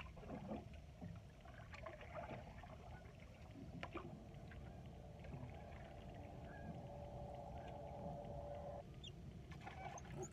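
Faint canoe sounds: a paddle moving and a few knocks against the hull. Under them runs a steady low hum that stops suddenly near the end.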